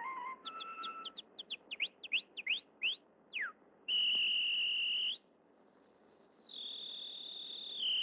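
Whistled canary calls for a cartoon: a run of about a dozen quick rising chirps in the first half, then long, steady, high whistle notes with a quieter gap between them.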